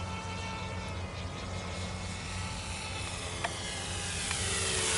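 Walkera F210 racing quadcopter in flight: its brushless motors and propellers whine, the pitch shifting gently with the throttle. The whine grows louder near the end as the quad comes closer.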